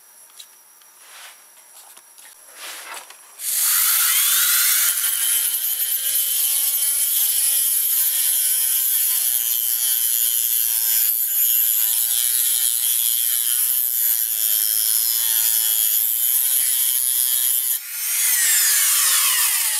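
Dremel rotary tool with a cutoff wheel grinding a slot across the head of a Torx screw. It starts about three and a half seconds in, runs loud with a high grinding hiss over a motor whine that wavers with the load, dips briefly near the end, then falls in pitch as it winds down.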